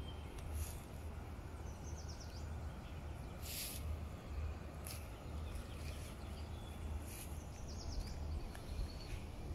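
Garden ambience: a small bird gives a quick high trill twice, about two seconds in and near the end, over a steady low rumble of wind on the microphone. A short, sharp high burst about three and a half seconds in is the loudest sound.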